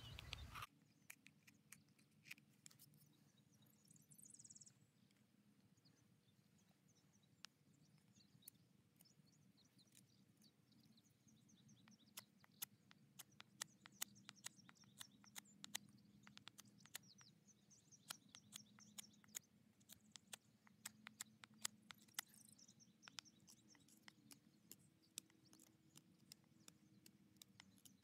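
Near silence, with faint, irregular clicks and scrapes of a knife shaving a small cedar wood fork, starting about halfway through and coming several a second.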